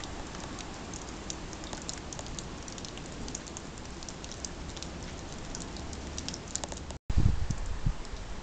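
Heavy wet snow falling, a steady hiss scattered with fine pattering ticks. Near the end, after a brief break, a loud low rumble comes in for about a second.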